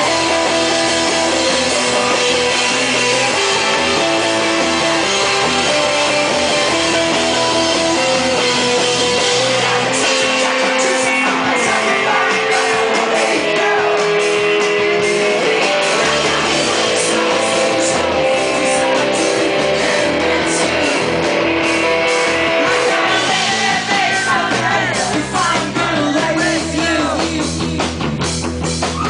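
Rock band playing live: electric guitars, drums and singing. Cymbal crashes come in about ten seconds in.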